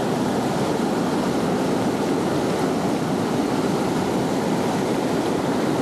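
Steady rush of fast-flowing river water, an even unbroken roar of whitewater current.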